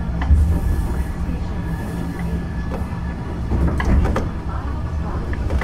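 Keifuku (Randen) tram car 631 running, heard from on board: a steady low rumble with a faint steady tone above it and a few short clicks around four seconds in.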